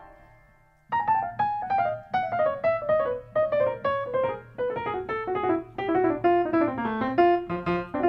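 Solo piano music. A chord fades away, and about a second in a run of quick notes starts up, falling in stepwise phrases.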